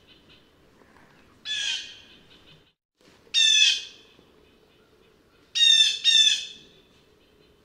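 Blue jay calling four times, each call slightly falling in pitch: one call, another about two seconds later, then a quick pair near the end. Faint high chirping runs underneath.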